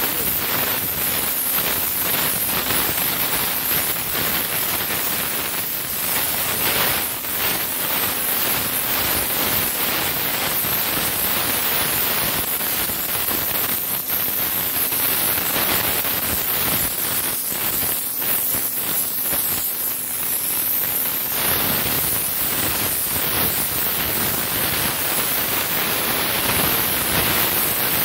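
Pressure washer jet spraying wet concrete: a steady hiss of high-pressure water striking the deck's surface.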